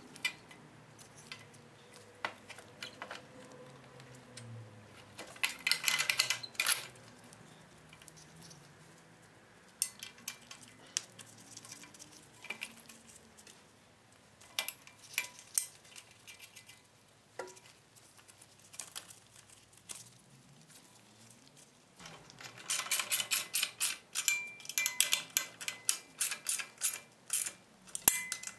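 Ratchet wrench clicking in quick runs while the exhaust header flange nuts are run down on the cylinder's exhaust port, with scattered light metal tool clinks in between. A short run of clicks comes about five seconds in and a longer, louder one near the end.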